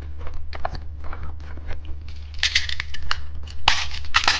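Close-up handling of candy packaging: scattered small clicks and taps, then from about halfway a run of loud, crisp crinkling and tearing of plastic wrapper, over a steady low hum.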